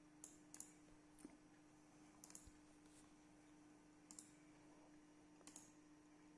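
Near silence: faint room tone with a steady low hum and about eight scattered soft clicks.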